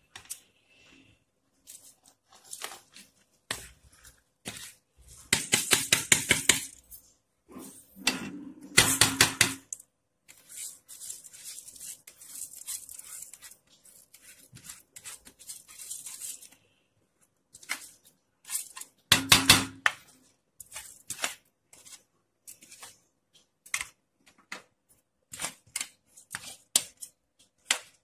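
Drained soaked rice being tipped and scraped from a container into an aluminium pot of boiling water, with scattered clicks and clinks of the container against the pot. There are three louder runs of rapid clatter.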